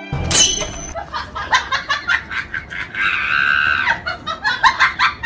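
Loud laughing in quick repeated bursts, with a held shriek about three seconds in. A brief high falling whistle-like tone comes near the start.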